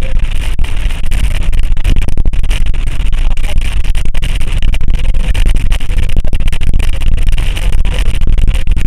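Heavy rain falling in a thunderstorm: a loud, steady downpour of densely pattering drops.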